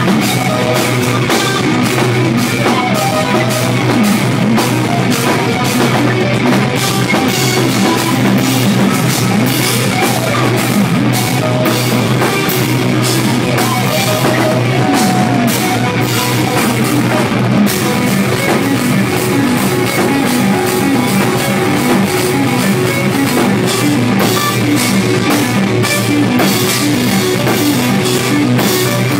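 Live instrumental progressive metal: a distorted electric guitar playing fast, busy riffs over a drum kit with frequent cymbal hits. The sound is loud and continuous, with little deep bass.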